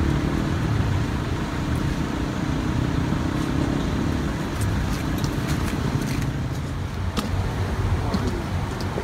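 Steady low outdoor rumble, with a few faint clicks about five to seven seconds in.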